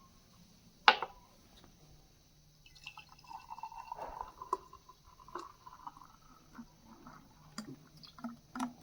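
A sharp click about a second in, then thick milkshake gurgling and dripping as it is poured from the portable blender jar, with small clicks of the jar and glass.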